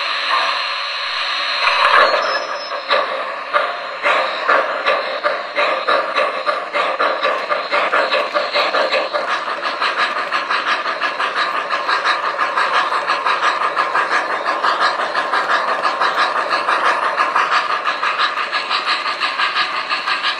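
MTH RailKing B&O 4-6-2 Pacific O-gauge model locomotive's electronic steam sound set, hissing at a standstill, then chuffing as the engine pulls away about two seconds in. The chuffs start slow and quicken into a steady beat of a few per second.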